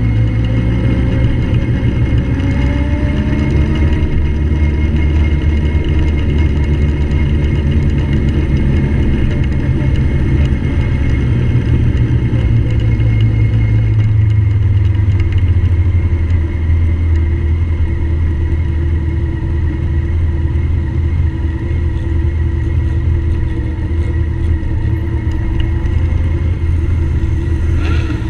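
Motorcycle engine running at low speed as the bike pulls away and rolls slowly: a steady low drone whose pitch rises over the first few seconds, then drops a little about halfway through.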